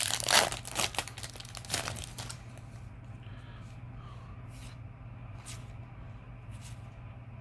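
Foil booster pack of trading cards being torn open and crinkled for the first two seconds or so, then only a few faint soft ticks of cards being handled.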